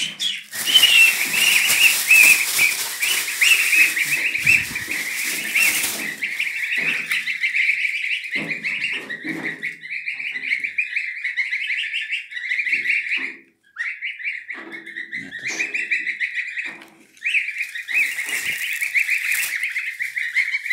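A brood of two-week-old goslings peeping constantly in a high, dense chorus, with loud rustling and handling noise over the first six seconds or so.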